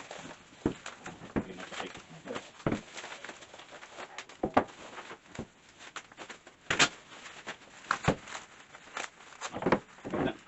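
Irregular knocks and clicks of a tray being fitted onto a steel mechanics' tool cart during assembly, with a few louder clanks near the middle and end.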